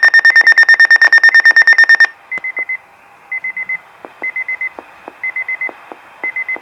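Weather alert radio receiver's alarm going off: a loud, rapid high-pitched beeping that stops about two seconds in, then groups of four short high beeps repeating about once a second.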